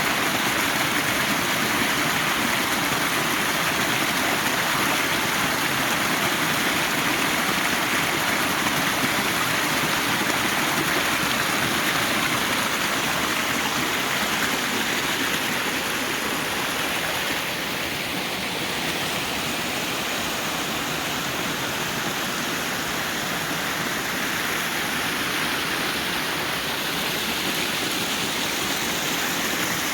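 Steady rush of water from a waterfall in a forest creek, a little quieter a bit past halfway through.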